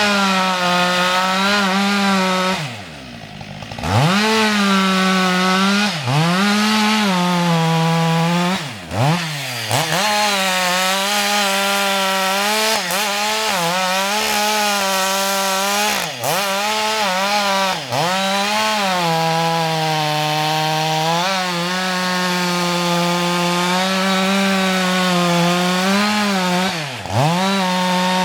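Husqvarna 560 XP two-stroke chainsaw running at high revs while cutting wood. The throttle is let off briefly several times, so the revs fall and climb back; the longest drop, to a quieter low run, comes about three seconds in.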